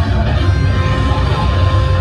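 Loud, dense noise music: a heavy, constant low rumble with a couple of steady drone tones held over a noisy wash.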